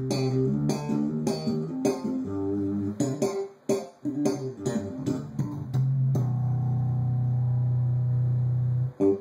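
Electric bass guitar played through a custom 12-inch bass cabinet fitted with a new RCF 12G301 ceramic-magnet woofer: a run of plucked notes, then one low note held for about three seconds. The player calls the new speaker's tone warmer and more responsive.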